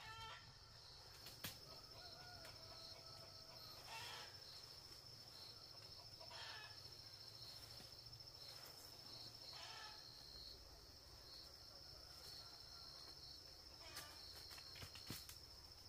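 Faint farmyard ambience: a steady high insect drone with a pulsing chirp over it, and a few short chicken clucks about four, six and a half, and ten seconds in.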